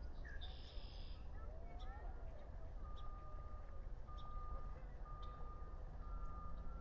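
A series of short, even-pitched electronic beeps, repeating about once a second from about three seconds in, over a steady low rumble.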